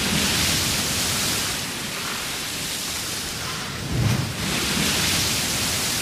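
Large ship moving through ocean waves: water rushing and hissing along the hull in surges, with a low thud of a wave against the hull about four seconds in, followed by another swell of spray.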